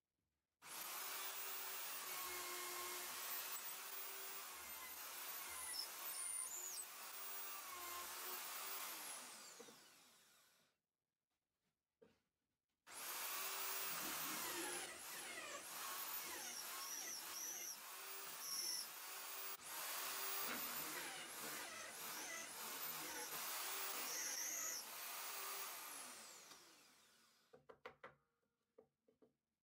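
Corded electric drill in a drill stand boring into plywood in two long runs, first with a twist bit and then with a 26 mm hole saw. Each run starts abruptly at full speed and fades as the drill winds down, and a few light knocks follow near the end.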